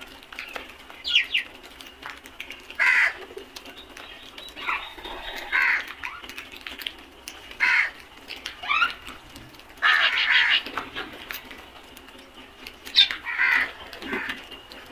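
A flock of crows cawing, with separate short calls every second or two and some coming in quick pairs.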